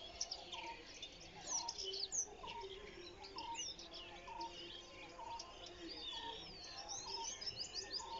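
Many birds chirping and twittering together in a morning chorus. One bird repeats a short, lower note steadily, about every two-thirds of a second.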